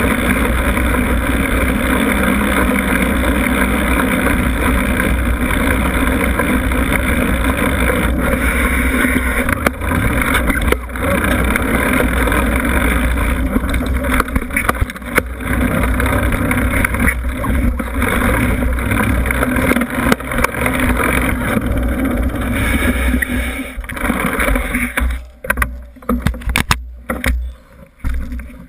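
Riding noise of a Giant Trance mountain bike heard from a GoPro mounted low on its frame: steady loud rumble of wind and tyres on pavement, with knocks and rattles from the bike over bumps. Near the end the bike slows and stops, and the noise breaks into scattered clicks and knocks.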